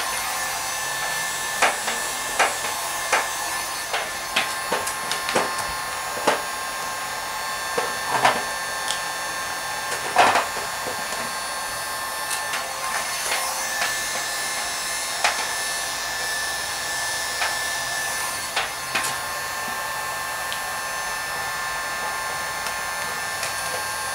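Electric heat gun running steadily, a hiss with a constant whine, warming vinyl wrap film so it can be stretched around the grille's curves. Scattered short clicks sound over it throughout.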